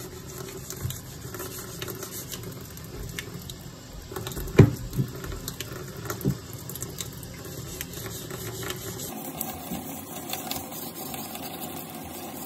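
400-grit wet sandpaper rubbing back and forth over the hammered steel blade of an old Robeson Shur Edge butcher knife, a steady wet scratching. A few sharp knocks come about four and a half to six seconds in, the first the loudest, and the sound changes character about nine seconds in.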